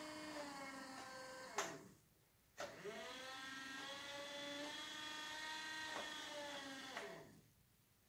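12-volt, 46 lb thrust Newport Vessels electric trolling motor running out of water, a steady whine that shifts pitch with a click each time the tiller's speed switch is turned to another setting. About two seconds in it winds down to a stop, spins back up with a rising whine half a second later, then winds down and stops again about seven seconds in.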